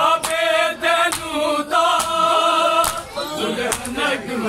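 Men's voices chanting a noha, a Shia Muharram lament, holding long notes, with sharp hand slaps of chest-beating (matam) landing roughly once a second.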